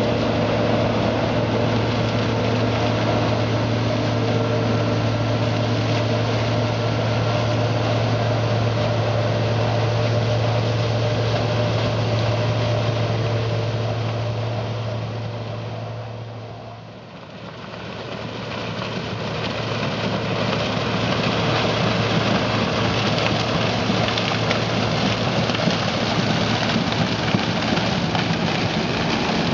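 Claas Tucano 440 combine harvester running in maize with a steady engine hum. It fades down briefly past the middle and comes back as a rougher, noisier running sound.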